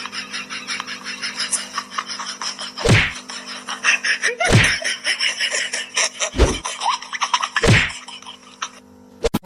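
Four heavy thumps, roughly one every one and a half seconds, over fast, dense clicking and a steady low hum.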